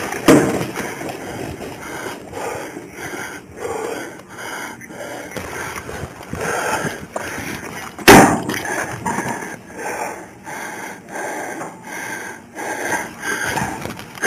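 Body-worn camera handling noise: uniform and gear rustling against the microphone and footsteps on pavement as the officer moves crouched alongside a pickup truck. A single sharp, loud knock comes about eight seconds in.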